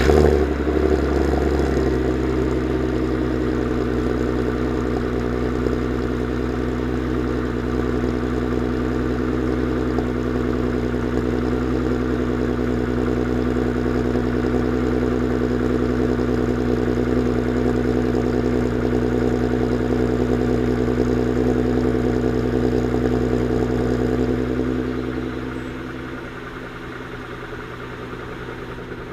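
Volkswagen Golf R32's 3.2-litre VR6 engine, breathing through a Milltek exhaust, idling steadily at a raised idle just after starting. Near the end it settles to a quieter idle.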